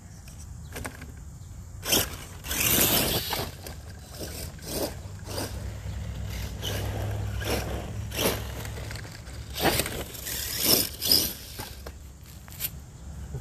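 Radio-controlled mud truck driving over gravel and dirt, its tyres scraping and crunching on the stones in repeated bursts over a low running rumble.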